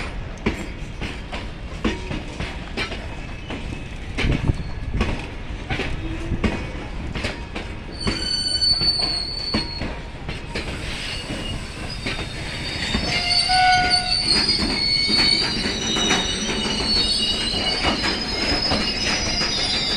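Loaded open freight wagons rolling past, their wheels clacking over the rail joints. From about eight seconds in, the wheels start squealing in thin, high-pitched tones, which grow into a steady chorus of shrill squeals through the second half.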